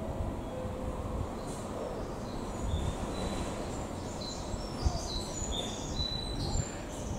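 Ambient noise under a station platform roof: small birds chirping in short, repeated calls over a steady low rumble.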